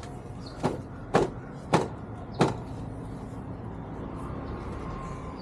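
Four sharp plastic clicks about half a second apart, with the last a little longer after, as a body panel on a Can-Am Spyder is pressed back into its clips. A steady low hum runs underneath.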